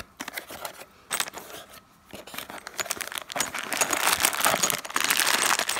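A cardboard box is handled open and a clear plastic bag of metal bolts and screws is rummaged inside it: crinkling plastic with small metallic clicks. The sound grows denser and louder from about halfway on.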